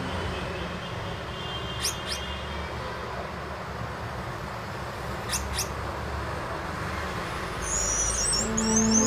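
Gouldian finches giving a few thin, high, short calls over a steady low background rumble, breaking into a quick run of high twittering about eight seconds in.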